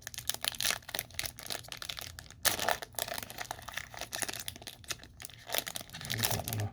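Trading-card pack wrapper being torn and crinkled by hand, with cards being handled: a continuous crackling and rustling with a louder crackle about two and a half seconds in.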